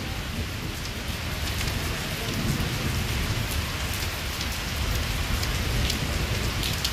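Torrential monsoon rain pouring down steadily, sheeting off a roof edge and splashing onto the plants below.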